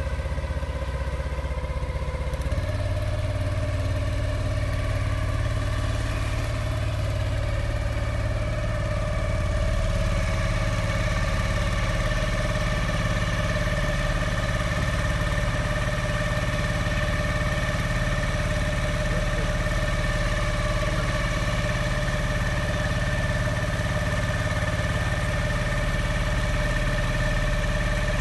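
7 HP single-cylinder four-stroke outboard motor running steadily at low speed. Its pitch steps up slightly about two and a half seconds in, and it gets a little louder around nine seconds in.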